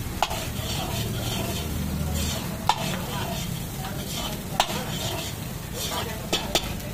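Egg fried rice sizzling in a large iron wok as it is stirred and tossed with a long-handled metal ladle. The ladle clacks sharply against the pan five times, twice in quick succession near the end.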